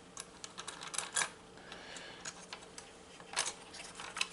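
Quiet, scattered small clicks and light taps of MIDI fuses being handled, in a quick cluster early and a few more about three and a half seconds in, over a faint steady hum.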